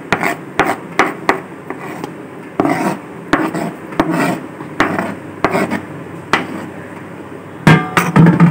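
Kitchen knife scraping chopped onion across a plastic cutting board into a bowl: repeated rasping scrapes and light taps of the blade on the board, with a couple of louder knocks near the end.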